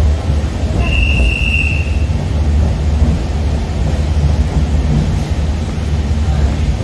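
Steady low rumble of a moving express train heard from inside a passenger coach, with a single high whine about a second in that lasts about a second.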